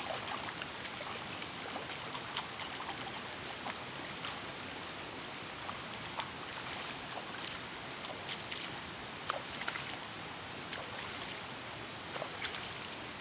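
Water running steadily, like a small stream, with many small splashes and ticks scattered throughout.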